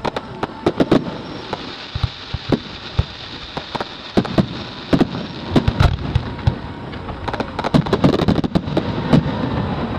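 Fireworks display: aerial shells bursting in a rapid, irregular run of sharp bangs over a steady crackling hiss. The bangs crowd closer together from about four seconds in.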